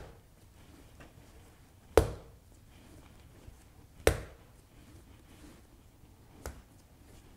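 Soft, wet slaps of pizza dough being stretched and folded onto a countertop, three times about two seconds apart, the last one lighter.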